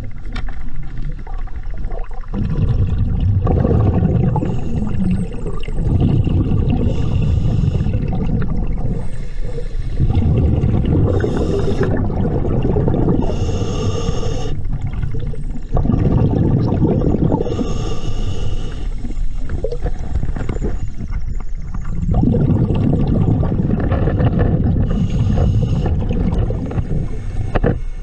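Scuba diver's regulator breathing heard underwater: exhaled bubbles rumbling in repeated bursts a few seconds apart, with short hissing inhalations between.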